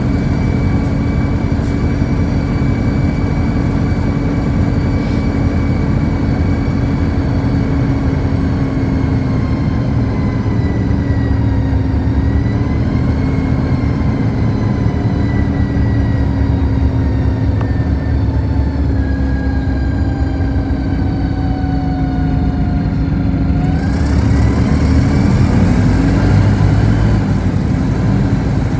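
City bus heard from inside the cabin while driving: drivetrain rumble with a whine that slowly falls in pitch as the bus eases off, then climbs steeply about 23 seconds in as it accelerates.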